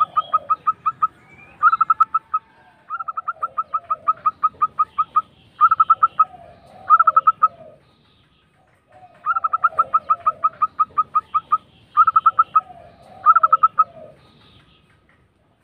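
Zebra dove (perkutut) song: repeated bursts of fast, rolling staccato coos, about nine notes a second, in runs of one to two seconds, with softer lower coos under them and a pause about eight seconds in.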